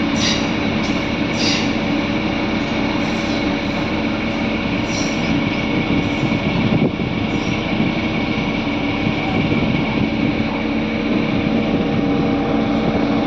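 A train running along the track with a steady, loud rumble and a constant hum. There are a few short, high squeaks from the wheels on the rails near the start and again about five seconds in.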